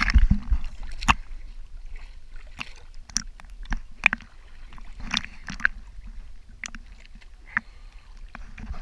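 Sea water sloshing and lapping right at the microphone, held at the surface, with many short sharp splashes and clicks scattered through, over a low rumble.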